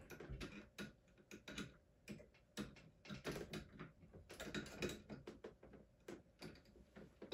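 Faint, irregular light clicks and taps of metal scooter parts being handled: the stem and front suspension being worked by hand.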